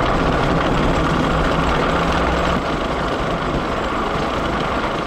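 Anchor chain paying out through the windlass in a continuous loud metallic rattle. The boat's engine ticks over in gentle reverse underneath it.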